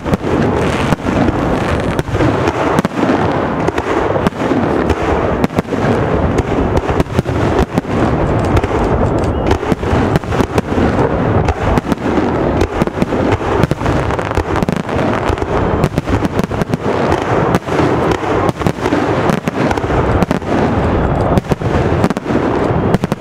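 Aerial firework shells bursting in a dense, unbroken barrage of bangs.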